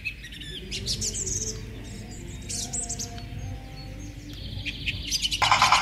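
Small birds chirping in the background, short high chirps scattered over a faint low hum. Near the end a loud, rapid rhythmic buzz starts abruptly.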